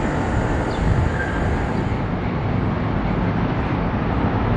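City street traffic noise: a steady rumble of vehicles on the road.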